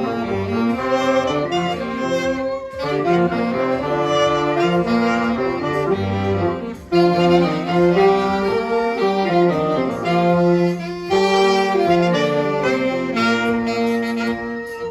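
Amateur band playing a tune: several melodic instruments hold notes together, with a short pause in the phrasing just before the middle.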